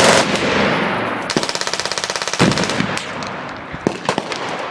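Full-auto machine gun fire on a firing range: a loud blast right at the start, a fast, even burst lasting about a second near the middle, then scattered single shots toward the end.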